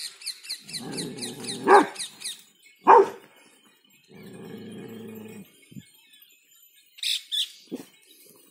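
A Rottweiler barking twice, deep and loud, about two seconds and three seconds in. Stretches of low, steady growling come before and after the barks.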